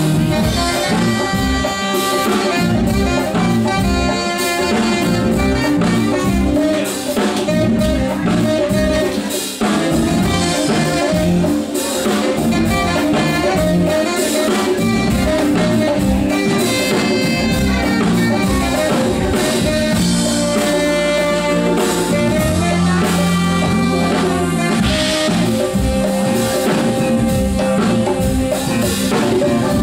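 Live band playing: a saxophone solo over drum kit, electric bass and hand percussion, with electric guitar heard as it opens.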